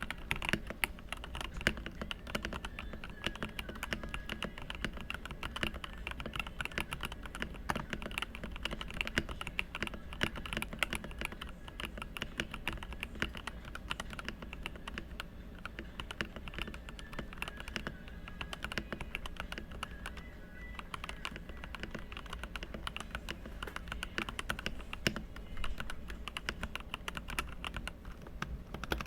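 Langtu GK65 65% mechanical keyboard, stock and unmodified, being typed on steadily: a continuous dense run of fast key clicks, several strokes a second.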